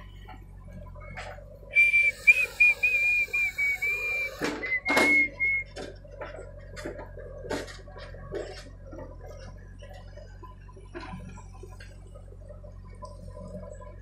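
JCB 3DX backhoe loader working, its diesel engine running low and steady under scattered clanks and knocks of the bucket and soil. About two seconds in, a loud high wavering whistle starts in short broken stretches and stops about three and a half seconds later.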